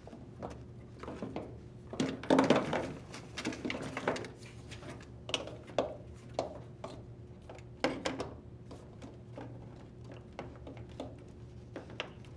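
Hands working a rubber washer drain bellow onto the drain pump and fitting its metal tension clamp: scattered clicks, knocks and rubbing of rubber and plastic, with the loudest cluster of knocks about two seconds in.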